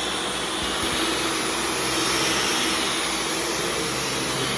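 Cordless stick vacuum running steadily in its auto mode on carpet: an even motor whine under a broad rush of air.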